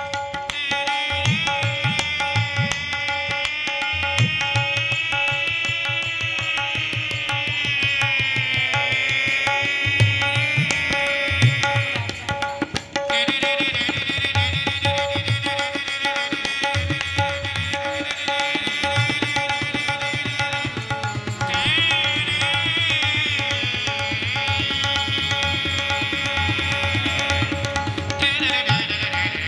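A sanai (shehnai) melody produced by the performer's nose, a reedy, nasal tune gliding between notes with a short break partway through. It is accompanied by a steady drone and tabla-style drum strokes.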